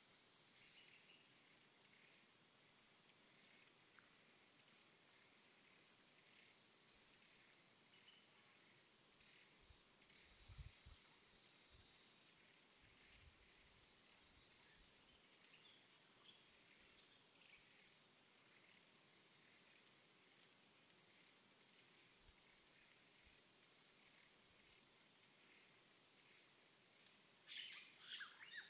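Faint outdoor nature ambience: a steady high insect drone with scattered faint bird chirps, and a short flurry of louder chirps near the end.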